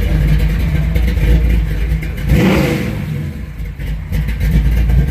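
Car engine idling at about 850 rpm, given one quick throttle blip about two and a half seconds in that rises and falls back to idle.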